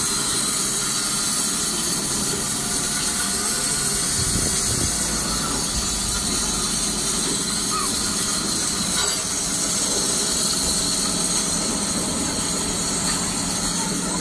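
Steady hissing, rushing noise at an even level.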